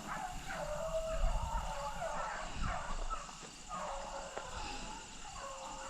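A pack of rabbit hounds baying on a rabbit's trail in the distance, many wavering calls overlapping one another.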